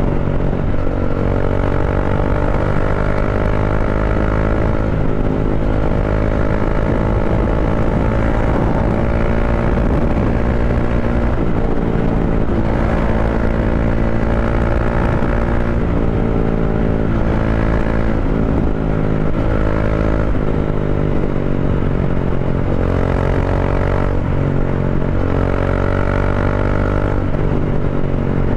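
Bajaj Dominar 400 single-cylinder engine running at highway speed through Akrapovic-style slip-on mufflers, with the catalytic converter replaced by a resonator. The exhaust note climbs and drops again every few seconds as the throttle is opened and eased.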